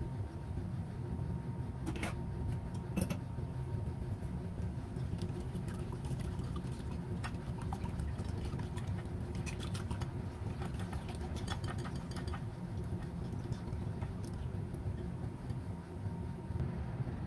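Wire whisk beating a liquid mixture in a glass bowl, its tines clicking rapidly against the glass, over a steady low hum. Two sharp taps come about two and three seconds in.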